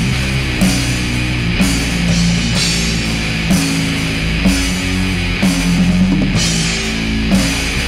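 Death-doom metal recording: distorted guitar and bass holding slow, heavy chords over drums, with a bright cymbal accent about once a second.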